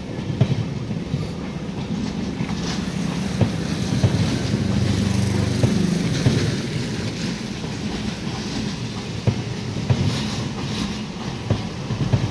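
Passenger train coaches rolling past on the rails as the express arrives at the station: a steady rumble, with scattered clicks of the wheels over rail joints.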